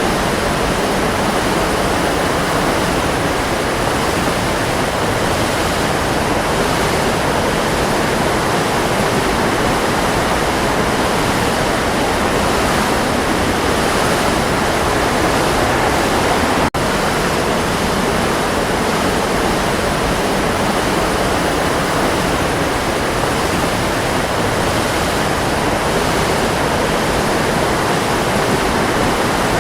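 Waterfall: a steady, dense rush of falling water, broken once by a split-second gap just past halfway.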